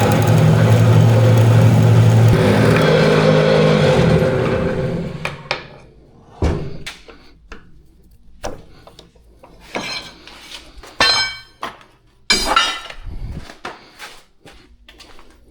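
A machine motor running steadily, winding down and stopping about five seconds in. After that come scattered metallic clinks and knocks of tools and metal parts being handled.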